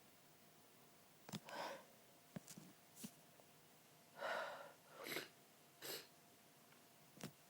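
A person's short breathy gasps and sniffs during a sneezing fit, the loudest about four seconds in, with a few small clicks between them. The uploader puts the fit down to red wine.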